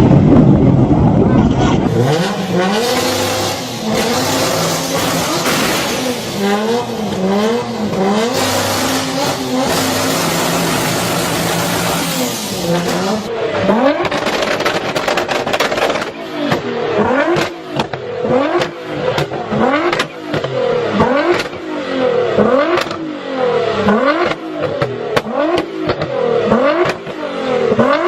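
Turbocharged car engines revving hard, with sharp exhaust pops and cracks from anti-lag backfire. Over the second half the revs climb and fall again about once a second, with cracks in between.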